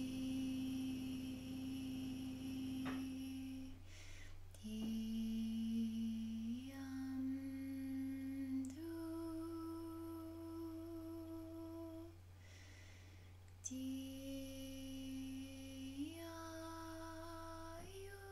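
A woman humming wordless light language: long, steady held notes of a couple of seconds each, stepping up and down in pitch, with brief pauses for breath between them.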